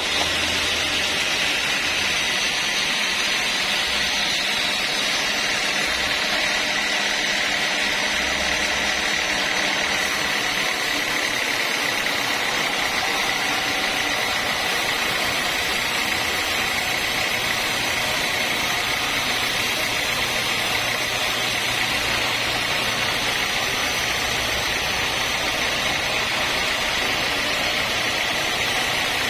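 Sawmill saw running through a long straight cut in timber: a steady, even high whine with hiss that holds without a break.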